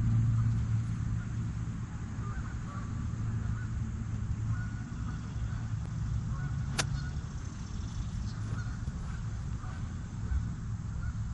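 Geese honking faintly now and then over a steady low rumble, and a golf club striking the ball once, a single sharp click about seven seconds in.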